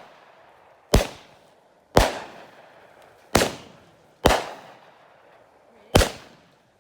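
Fireworks going off: five sharp single bangs, roughly a second or so apart, each trailing off in an echo.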